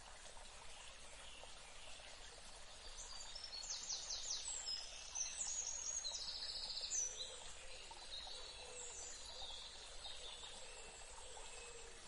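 Steady, gentle water sound with birds chirping in quick, high trills from about three seconds in to about eight.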